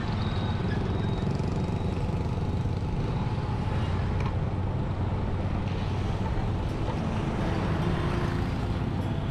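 Road-vehicle engine running steadily under way, with traffic and road noise, as heard while riding along a city street.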